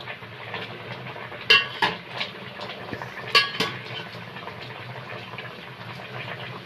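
Metal slotted spoon clinking against the side of a metal cooking pot as chicken pieces simmering in liquid are turned, about five sharp clinks in the first four seconds over the steady low sound of the pot simmering.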